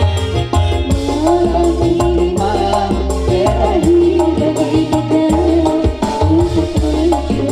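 Live electronic keyboard band music: a steady low beat under a held, wavering melody line.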